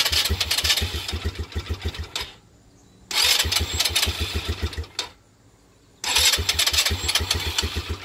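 2018 Polaris Phoenix 200 ATV's single-cylinder engine cranking on the electric starter in three tries of about two seconds each, sputtering as if about to fire but not catching and running. This hard starting is the fault the dealer traced to the carburetor's main needle clip being set on the wrong position.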